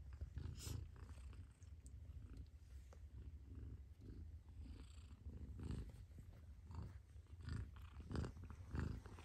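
Mother cat purring: a faint, steady low rumble, with a few brief sharper sounds over the last few seconds.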